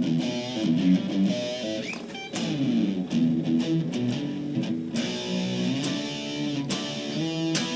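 Electric guitar played through a Boss SD-2 Dual OverDrive pedal: overdriven chords and riff notes, with a few hard strums.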